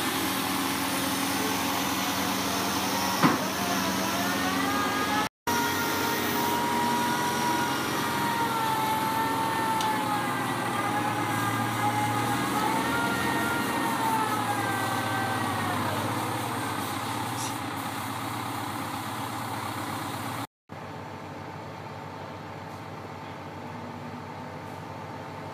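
Truck-mounted mobile crane running under load, its engine note carrying a whine that rises and falls in pitch as the lift is worked. A single sharp knock sounds about three seconds in, and the last few seconds are quieter.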